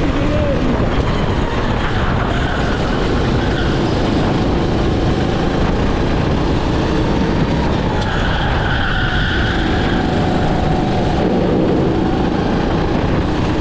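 Racing kart engine running at speed, heard from onboard the kart as a steady, loud drone without pauses.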